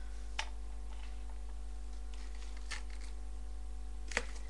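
A steady low electrical hum, with three short clicks spread through it, the last and loudest near the end.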